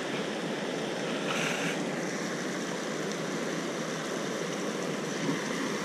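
Steady rushing of water pouring over a small dam spillway into the pool below.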